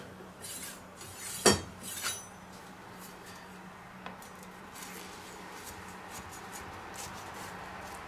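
Kitchen cutlery clatter: a sharp metallic knock about a second and a half in and a lighter clink half a second later as a large kitchen knife is taken up, then faint ticks and scrapes of the knife blade pressing into a baked cheese crust, over a steady low hum.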